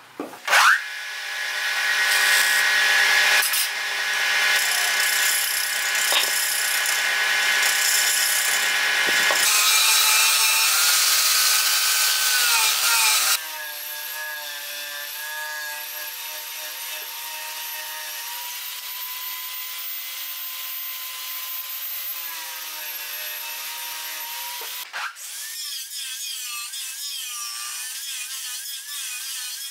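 Wood lathe spinning a bamboo piece while it is cut, giving a loud scraping for about the first 13 seconds. It then runs more quietly with a steady whine, and the whine drops out about 25 seconds in.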